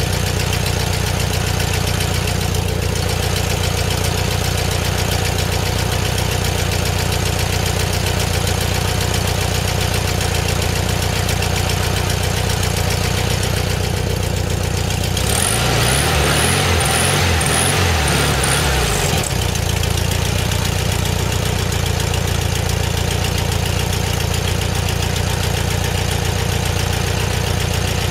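1974 Volkswagen Beetle's air-cooled flat-four engine idling steadily on its freshly rebuilt 34 PICT carburetor, revved up briefly for about four seconds about halfway through, then back to idle.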